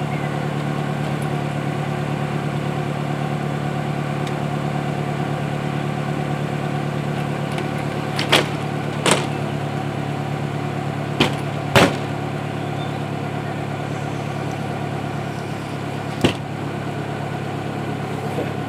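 1998 Chevy Tracker's 1.6-litre four-cylinder engine idling steadily, with five sharp knocks in the second half as the removable hard-top cap is handled and lifted off the back.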